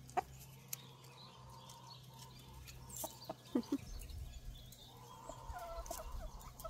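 Backyard hens clucking softly, with a few short, scattered calls, some dropping in pitch.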